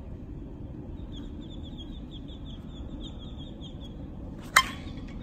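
Sharp metallic ping of a new Miken Freak Primo USSSA slowpitch softball bat hitting a pitched softball about four and a half seconds in, with a brief ring: solid contact that sends the ball off as a line drive. Faint quick chirping runs underneath before the hit.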